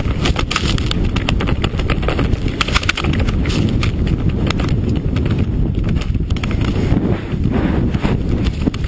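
Snowmobile engine running hard as the machine climbs through snow, picked up close by a camera mounted on the hood, with wind buffeting the microphone and frequent rattling knocks.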